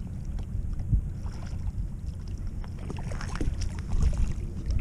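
Wind buffeting the microphone as a steady low rumble, with scattered light clicks and rustles of handling about three seconds in.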